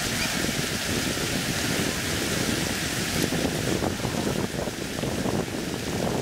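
Ground-level fountain jets spraying and splashing onto wet paving: a steady hiss of falling water.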